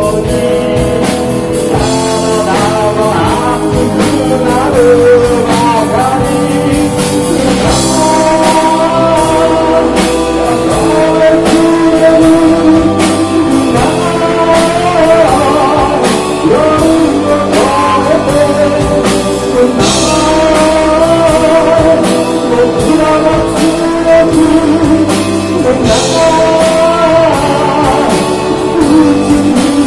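Live rock band playing a song, a lead singer over guitars and a steady drum beat.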